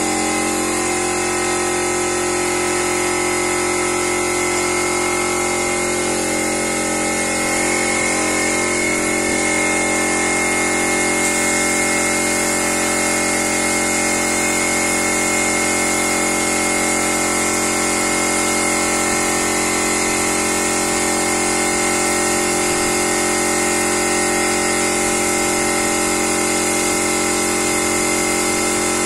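Small portable electric air compressor running steadily, with the hiss of a spray gun spraying PU polish. Its tone shifts slightly about six seconds in.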